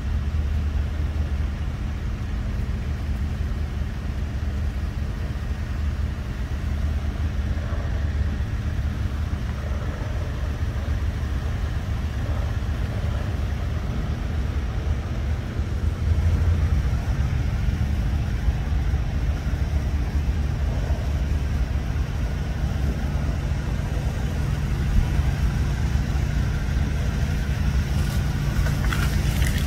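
Steady low rumble and hum of a running engine, a little louder from about halfway through.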